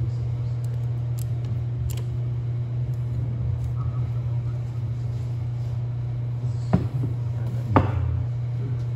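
Light metallic clicks and clinks of valve spring retainers and a valve spring compressor being handled on an aluminium cylinder head, over a steady low hum; two sharper clicks come near the end.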